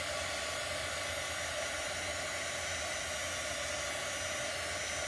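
Handheld hair dryer running steadily on one setting, drying freshly applied chalk paste on a wooden piece.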